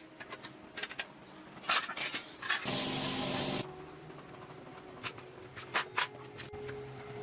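A burst of spray hissing for about a second, set among scattered light clicks and knocks of workshop handling.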